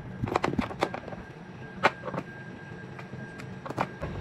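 Handling clicks and knocks of a power cord and its plug being moved about on a metal workbench, a scattering of sharp taps with the loudest about two seconds in.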